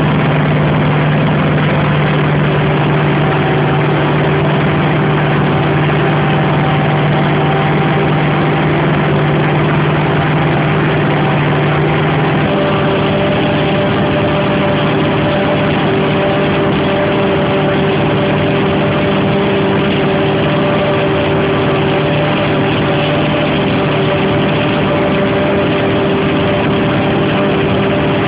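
Claas Jaguar 695 SL forage harvester running steadily while cutting standing maize, a loud unbroken drone of engine and machinery. Its hum changes tone about twelve seconds in.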